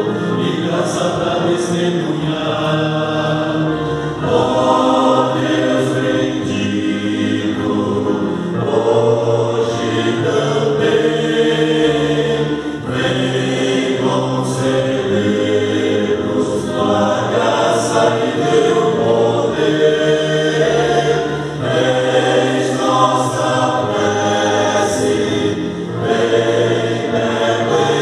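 Male vocal ensemble singing a Portuguese-language hymn in harmony through microphones, voices held in long sung phrases with short breaks between them.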